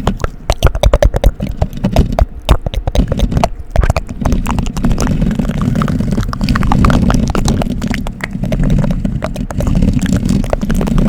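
Close-miked ASMR scratching and mouth sounds. For about the first four seconds it is a rapid run of sharp clicks, then it turns into a dense, steady rubbing texture with a heavy low rumble.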